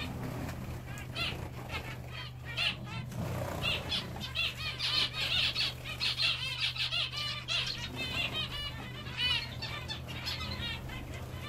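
Zebra finches calling in a rapid, overlapping stream of short chirps, thickest in the middle, with the flutter of wings as birds bathe and fly.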